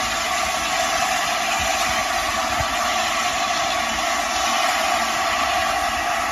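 Steam locomotive 60007 Sir Nigel Gresley, an LNER A4 Pacific, standing at the platform, with a steady hiss of escaping steam.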